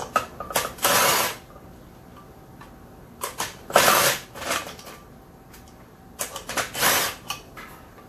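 Milwaukee cordless impact tool, three short bursts, backing quarter-inch bolts out of an aluminium sprint car wheel, with clicks of metal parts being handled between the bursts.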